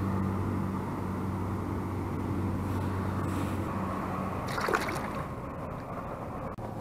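A small motor humming steadily over water sounds, the hum fading about two-thirds of the way through, with a brief sharper sound just before it fades.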